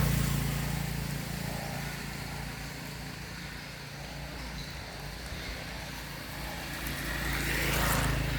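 Road traffic: a vehicle passing and fading away at the start and another approaching and passing near the end, over a steady low engine hum.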